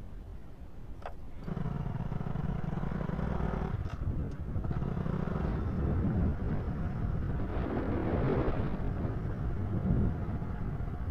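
Small motorbike engine starting up about a second and a half in and running steadily as the bike rides along, with a short click just before it comes in.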